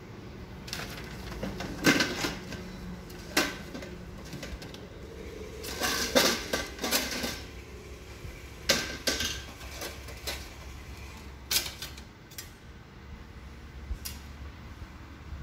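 Stainless-steel parts of a box-type domestic flour mill clinking and clattering as the outlet tray and steel flour container are handled: a string of sharp metallic knocks, most of them in the first twelve seconds, over a steady low hum.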